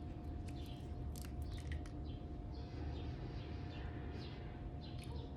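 A steady low room hum with a faint constant tone, with scattered short, high chirps of small birds and a few light clicks from small glass oil bottles being handled.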